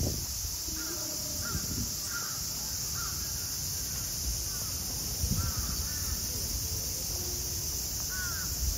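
Birds calling in short, repeated cries over a steady high hiss.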